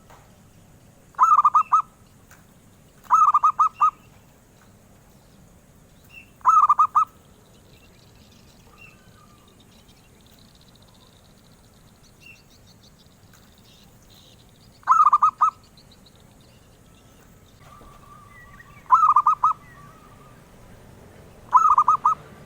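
Zebra dove (perkutut) cooing: six short bouts of rapid, trilled notes, a few seconds apart. Faint high chirps are heard between the bouts about halfway through.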